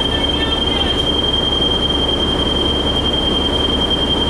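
Cabin sound of a New Flyer D60LFR articulated diesel bus running: a steady low engine and road rumble with a continuous high-pitched whine holding one pitch.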